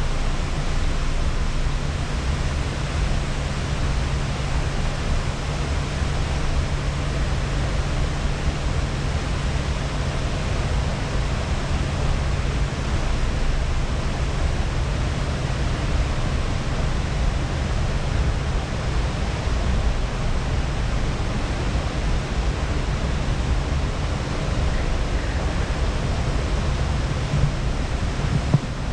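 Escalator running, a steady rushing noise with a low hum. A few louder knocks come near the end.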